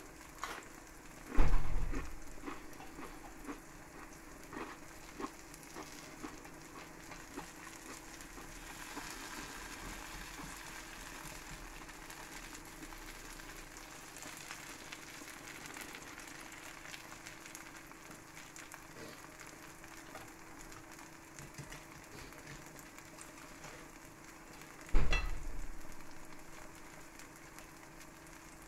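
Grated cheese frying in a pan, sizzling steadily with small crackles. Two loud knocks, one about a second and a half in and one near the end.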